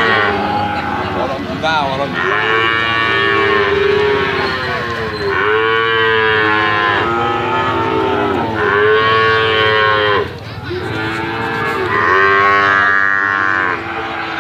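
Bali cattle mooing over and over, a long drawn-out moo every three seconds or so, each rising and then falling in pitch.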